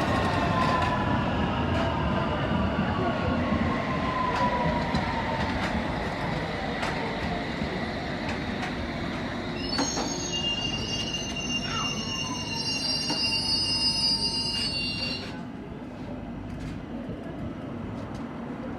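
A train slowing into the station, its motor whine falling in pitch. From about ten seconds in, a high squeal of the brakes and wheels sets in and stops suddenly about five seconds later, leaving a lower rumble as the train comes to rest.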